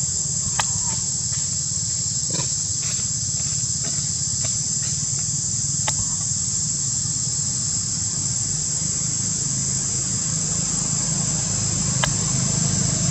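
Steady high-pitched insect drone over a low steady rumble, with a few short sharp clicks.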